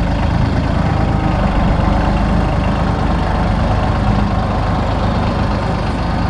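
Mahindra tractor's diesel engine running steadily at a constant speed, with an even low-pitched pulsing and no revving.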